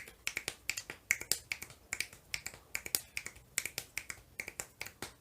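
Quick clicks made by a person, imitating a horse's galloping hoofbeats, several a second in uneven groups of two or three.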